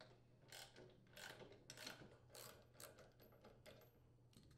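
Socket ratchet wrench clicking faintly in a series of short strokes, about two a second, as it backs out the bolt holding a snowblower's auger drive pulley.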